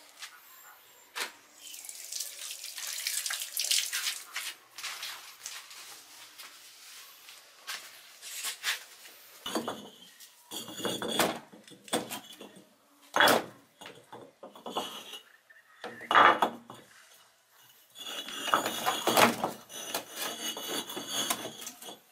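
Irregular metal clattering and knocking, with stretches of scraping, as metal parts are handled and worked; the loudest are a few sharp single hits.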